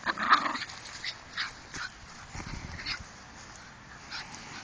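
Rat terriers at rough play, a puppy and a young dog, giving a scattered string of short, quiet yips and whines.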